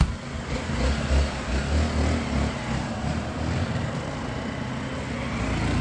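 Motorcycle engine running with a steady low rumble that swells and eases slightly.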